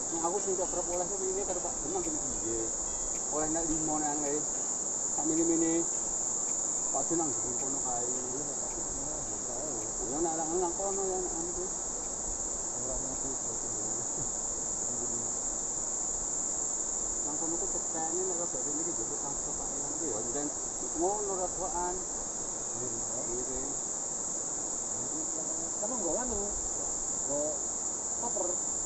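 A continuous high-pitched insect chorus, steady and unbroken, over the low rush of a fast-flowing river.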